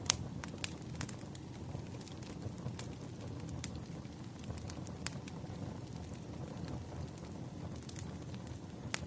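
Campfire crackling: a steady low rustle of burning wood with sharp pops scattered through it, a loud pop right at the start and another near the end.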